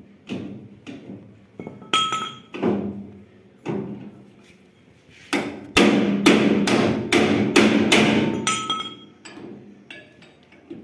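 Hammer blows on a steel part of a combine harvester, knocking it into its seat: a few scattered strikes, then a quicker run of about eight blows about two a second, some leaving a brief metallic ring.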